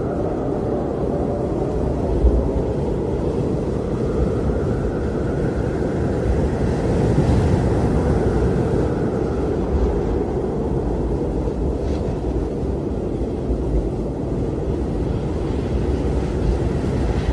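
Blizzard wind blowing steadily with a deep rushing noise, and a faint whistle that swells and fades.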